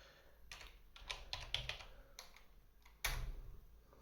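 Typing on a computer keyboard: a quick run of keystrokes in the first half, then one louder thump about three seconds in.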